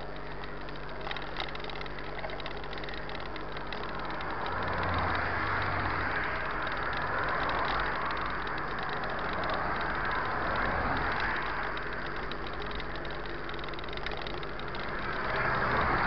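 Road traffic passing on a highway, cars and a van going by with tyre and engine noise that swells from about four seconds in to about twelve, and again near the end, over a steady low hum.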